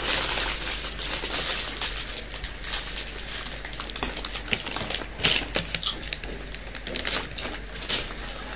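Potato chips being bitten and chewed: irregular crisp crunches, mixed with the crinkling of a chip packet.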